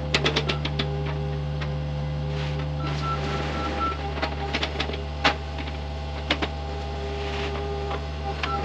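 Excavator's diesel engine running steadily with a hydraulic whine that drops out for a few seconds, under a run of clicks and knocks from the machine at work. A short run of quick beeps comes about three seconds in.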